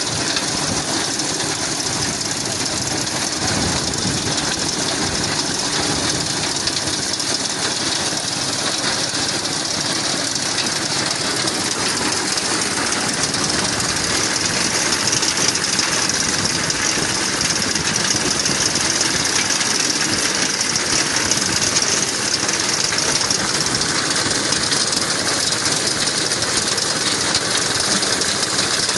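An engine running steadily, a continuous noise with no pauses, a little louder in the second half.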